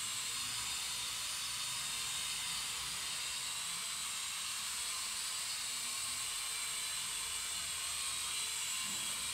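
E88 toy quadcopter hovering, its four small propellers and motors giving a steady, high-pitched whirring hiss with a faint whine in it.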